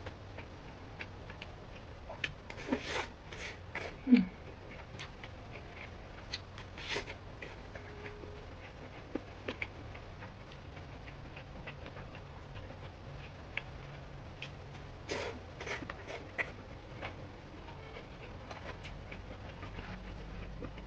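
Close-miked eating sounds from a bowl of mixed rice: chewing and mouth smacks with scattered small clicks of a spoon or chopsticks. About four seconds in comes a short, low falling sound from the mouth, the loudest moment.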